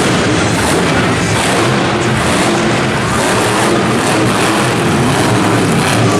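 Monster truck engine running loud over continuous arena noise.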